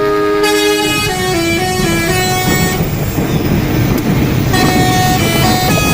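Telolet musical horn playing a quick tune of several stepped notes, each a chord of held tones, over a steady low vehicle noise.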